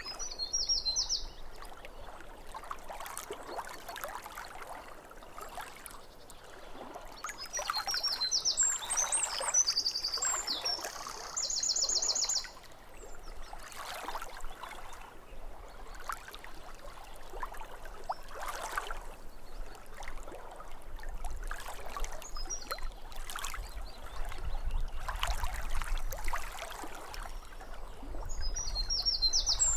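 Small waves lapping at a lake shore in irregular soft splashes, with a songbird singing short bursts of high, rapid chirps near the start, around ten seconds in (ending in an even trill), and again at the end.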